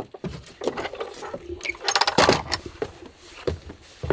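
An irregular series of knocks, clicks and rattles from things being handled and moved about, with the busiest clatter about two seconds in.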